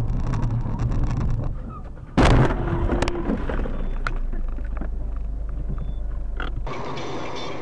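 Car crash heard over the vehicle's own road and engine noise: a sudden loud impact about two seconds in, followed by a few sharp knocks and rattles. Near the end the sound cuts to a different steady road noise.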